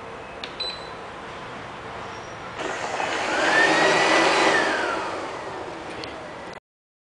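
Q5 robot vacuum beeping twice as its buttons are pressed, then its motor whirs up with a rising whine, holds, and winds down as it is switched off, with a click near the end.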